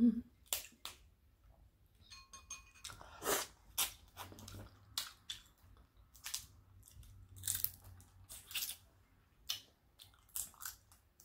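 Close-miked eating of seafood-boil food: irregular bites and chewing, scattered crunchy clicks a few times a second.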